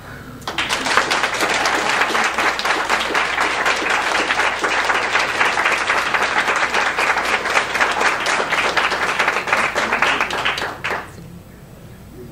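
Audience applauding for about ten seconds, starting half a second in and dying away near the end.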